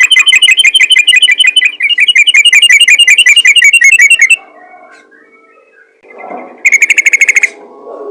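Yellow-vented bulbul (trucukan) giving loud, rapid chattering calls, a fast run of repeated notes that breaks off about four seconds in, followed by a short burst near the end.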